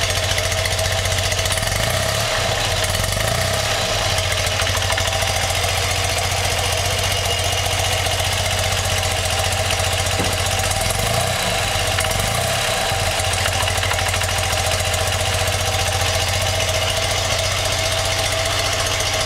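BMW R100RS air-cooled flat-twin (boxer) engine idling steadily during carburettor adjustment.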